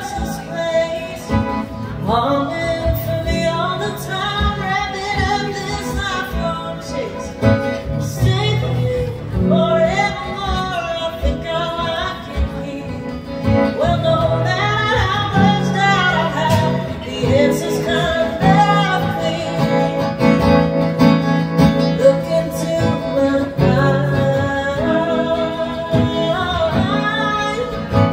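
A woman singing a song solo while playing an acoustic guitar, heard live in the room.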